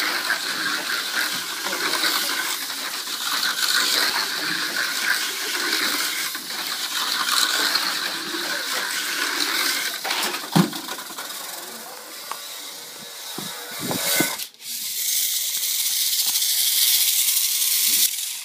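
Tamiya Mini 4WD car on an AR chassis running on a plastic slot-lane track: a loud, high whir from its small electric motor and gears that swells and fades every second or two as it laps. There is a sharp knock about ten seconds in and a few thumps a few seconds later. After that the whir turns steadier and higher, as if the car is held with its motor spinning free, and it cuts off suddenly at the end.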